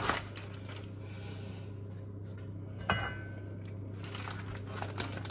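Small knocks and clicks of kitchen utensils being handled at a counter over a steady low hum, with one sharper clatter about three seconds in.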